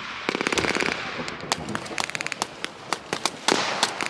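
Battle re-enactment gunfire with blanks: a short rapid burst from an automatic weapon just after the start, then scattered single rifle shots from several guns.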